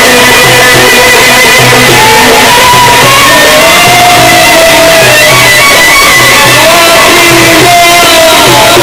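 Loud amplified band of a Sufi inshad performance playing an instrumental passage: a melody of held, sliding notes over a steady pulsing beat. The singer's voice comes in near the end.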